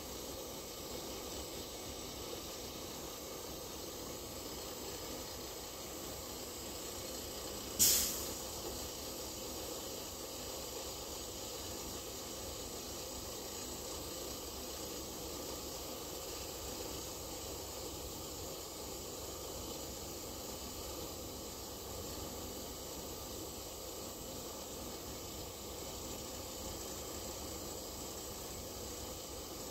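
Steady hissing from a bulk cement tanker's pneumatic discharge, with one sharp bang about eight seconds in.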